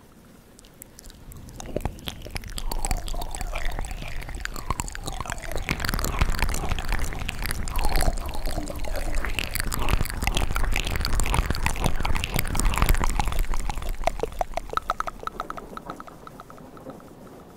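ASMR mouth sounds made close to a 3D microphone: a dense run of wet clicks, smacks and squelching tongue and lip noises, with a finger at the lips, swelling in about two seconds in and fading out near the end.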